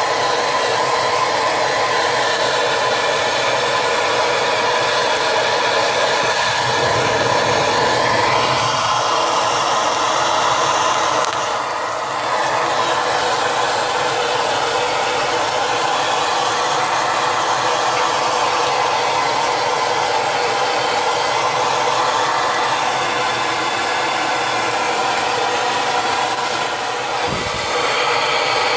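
Bernzomatic TS8000 hand torch burning with a loud, steady rush of flame as it sears a steak, dipping briefly about twelve seconds in and again near the end.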